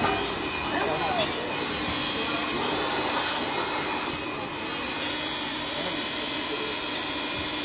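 Handheld electric air blower running steadily with a high whine, blowing loose sand out of a sand casting mould.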